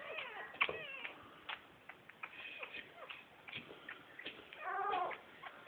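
Young bull terrier puppy whimpering and squealing in thin, high mewing cries while being held: a few short cries in the first second and a longer wavering cry near the end, with faint handling clicks.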